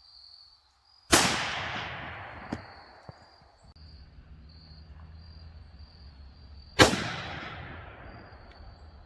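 Two rifle shots about six seconds apart, each followed by a long fading echo: rifles being test-fired to check their zero.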